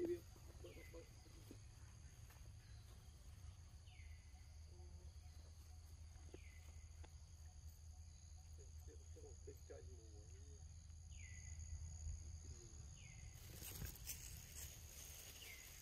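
Faint outdoor ambience: a steady high insect drone with a short falling whistle-like call repeated every few seconds. A brief rustle comes near the end.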